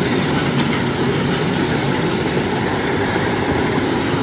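Kubota DC-105X combine harvester running steadily, its diesel engine and threshing machinery working as it cuts lodged, flattened rice.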